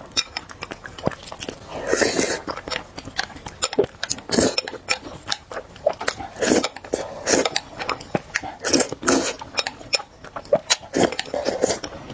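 A person eating spicy noodles close to the microphone: wet chewing with many small mouth clicks, broken by several short noisy bursts.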